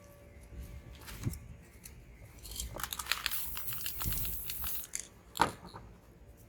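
Paper and spray-paint materials being handled: crinkling and rustling with small ticks, a hiss lasting about a second and a half midway, then one sharp click near the end.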